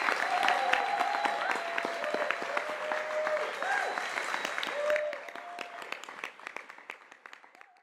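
Audience applauding, the claps thinning and fading away, with a few voices among them; the sound cuts off near the end.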